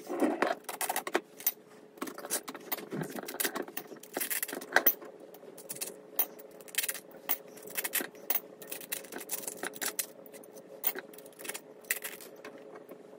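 Metal fins of an air-spaced variable capacitor clinking and rattling against each other as the stacked plates are pulled apart by hand on their threaded rods, in many short irregular clicks. A faint steady hum runs underneath.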